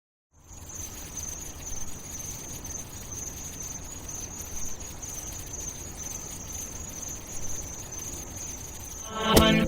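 Steady high-pitched insect chorus, like crickets, over faint background hiss. Pitched music starts up just before the end.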